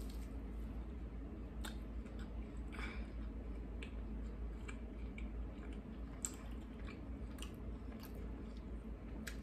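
A person chewing a crispy spicy chicken nugget close to the microphone, with scattered small wet mouth clicks, over a faint steady low hum.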